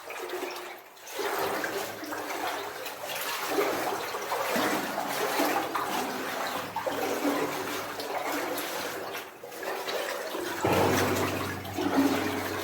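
Water sloshing and splashing in uneven surges as a person wades through a flooded mine passage.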